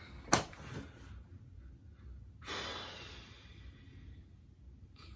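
A man's long breathy exhale, a sigh blown out about two and a half seconds in and fading over about a second. Before it, near the start, comes a single sharp click.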